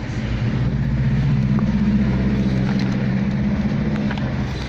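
A vehicle engine running: a steady low hum that grows louder about half a second in and eases off near the end.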